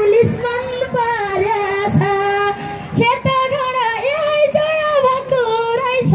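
A woman singing a Nepali dohori folk song into a microphone, her voice amplified, over a regular low drum beat about once a second.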